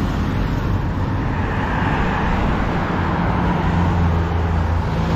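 Busy road traffic: an engine running close by with a low steady hum, and tyre and engine noise swelling as a vehicle passes about two seconds in.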